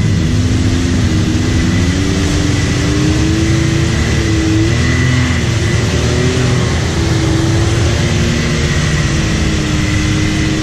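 Can-Am X3 turbo side-by-side's turbocharged three-cylinder engine running under load through deep mud, heard from the cab. Its pitch rises and falls as the throttle comes on and off over a continuous wash of mud and water noise, with a steady high whine alongside.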